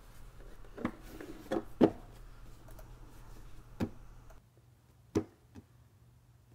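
Cardboard Stratego game box being handled and set on a table: several soft knocks and taps, the loudest about two seconds in and about five seconds in, over a faint low hum that stops about four and a half seconds in.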